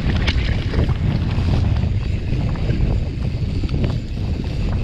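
Mountain bike rolling fast down a dirt singletrack: a steady low rumble of wind buffeting the microphone and tyres on the dirt, with scattered clicks and rattles from the bike.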